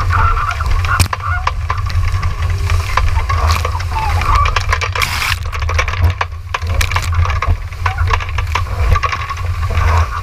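Wind buffeting the microphone of a camera mounted on a sailing dinghy, over the rush and hiss of water and spray along the hull as the boat drives fast through rough, gusty water. Short sharp slaps of spray and waves come throughout, with a wavering whistle in the wind.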